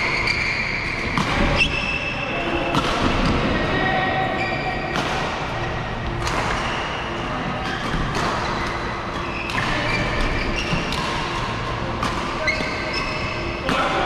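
Badminton rally: rackets striking the shuttlecock as sharp cracks every second or so, with shoes squeaking briefly on the court mats and echoing in a large hall.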